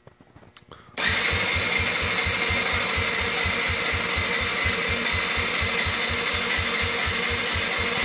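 Electric starter cranking a 1999 Yamaha Badger 80cc single-cylinder four-stroke ATV engine, which starts about a second in with a steady whine and a fast, even beat of compression strokes, and never fires. It is a cold no-start with the choke fully on, which the owner traced to too-tight intake valve lash letting compression escape.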